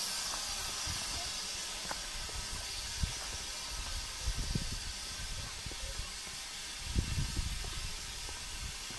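Footsteps on a dirt footpath: a few irregular low thumps over a steady hiss.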